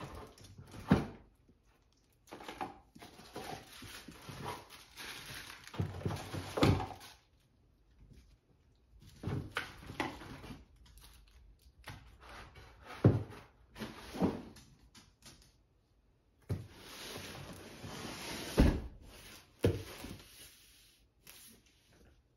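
Unpacking noise: plastic bags and cardboard packaging rustling as they are handled, broken by several sharp knocks and thuds as items are set down on the wooden floor.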